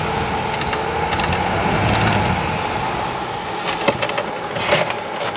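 Small electric fan running with a steady hum over an even rushing noise, with a few light clicks.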